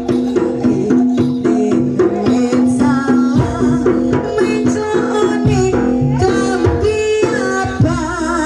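Live jaranan music: hand drums and percussion under held pitched tones, with a wavering melody line on top.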